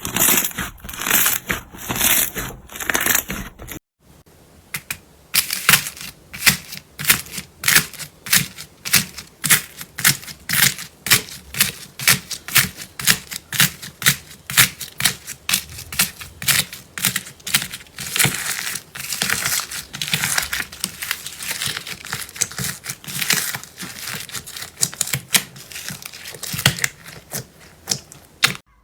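Slime being pressed and worked by hand, crackling densely, then after a cut a steady run of sharp clicks and pops at about two a second.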